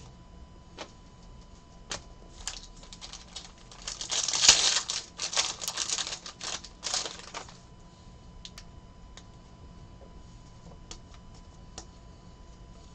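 Trading cards and their packs being handled: scattered light clicks as cards are flipped and slid, with a few seconds of dense crinkling and rustling of a foil pack wrapper in the middle.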